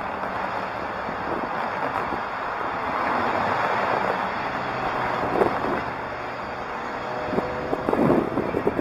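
Cars passing on the road alongside: a steady rush of tyre and engine noise that swells about three seconds in and then eases off.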